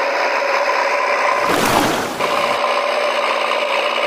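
Small electric motor and plastic gears whirring with a steady grinding rasp, as from the toy crane's winch hoisting its load. A brief rougher stretch breaks in about one and a half seconds in and stops about a second later.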